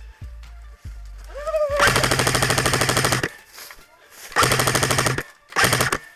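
Three bursts of full-auto airsoft gun fire, each a rapid, even stream of shots; the first lasts about a second and a half, the others are shorter. Music with a steady beat plays before the first burst.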